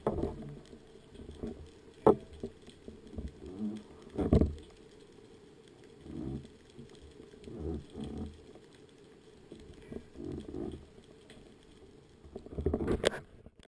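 Muffled underwater noise through an action camera's housing: irregular low thumps and rushes of moving water every second or two, with a sharp knock about two seconds in and a louder rush of water near the end.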